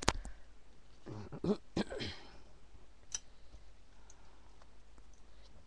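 Sharp clicks and taps of hand crafting work at a table, with a short throat-clear-like vocal sound about a second in.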